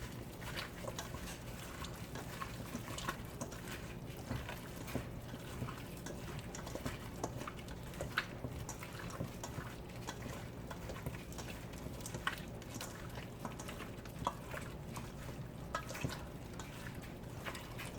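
Chicken wings cooking in a pan of Coca-Cola sauce: a steady bubbling with many small scattered pops and crackles, over a low steady hum.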